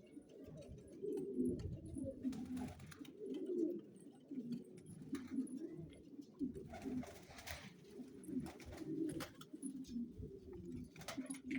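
Several pigeons cooing continuously, their low coos overlapping, with a few brief rustling noises among them.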